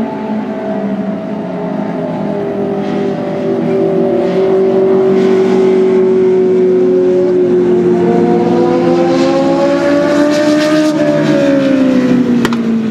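Legends race car engines running at speed on the track. One engine's pitch climbs slowly, then drops away near the end as the car goes by.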